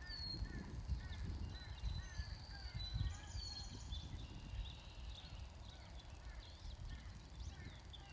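Wild birds calling in the background: a short chirping note repeated about twice a second that stops about three seconds in, with a few higher whistled notes over it, all above a low rumble.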